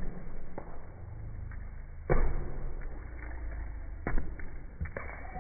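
A soccer ball kicked barefoot and bouncing on a tiled floor: a few dull thuds, the loudest about two seconds in, more about four and five seconds in.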